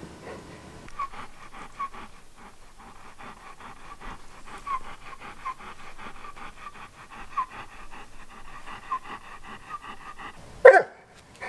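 Old English Sheepdog panting, about five quick breaths a second, with a few brief high squeaks mixed in. Near the end comes one short, loud sound.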